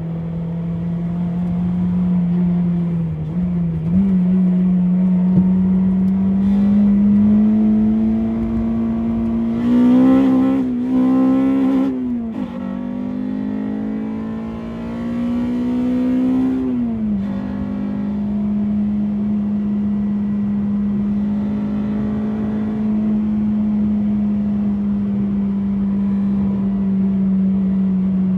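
Honda Civic EP3's K20A2 four-cylinder engine running hard at steady revs, climbing about ten seconds in, dipping briefly near twelve seconds, climbing again and dropping sharply about seventeen seconds in before settling back to a steady pitch.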